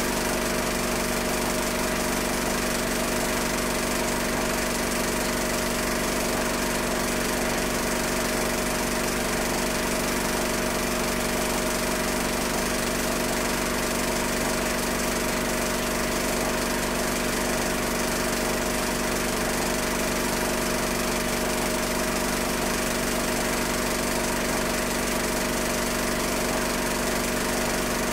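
Steady mechanical drone from a film projector running, with several held tones over an even hiss that never changes in level.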